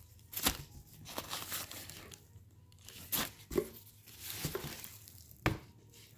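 Paper and foam packing wrap rustling and crinkling as it is pulled off a new leather handbag, in irregular bursts with a few sharper ones.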